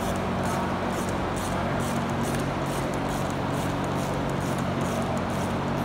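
Wrench or ratchet turning the clamp-ring bolt on an air brake chamber, giving faint short clicks at roughly two a second, over a steady low hum.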